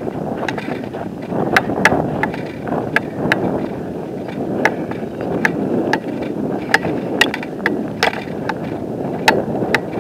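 Footsteps crunching and clicking on loose rocks of a stony dirt trail, about two a second, over a steady rough rubbing noise from the walker's movement against the camera.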